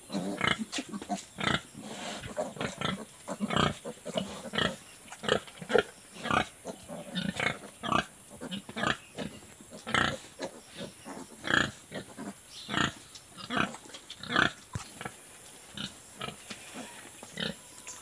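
Sow grunting in a steady rhythm, about two short grunts a second, thinning out near the end: the nursing grunts of a sow while her piglets suckle.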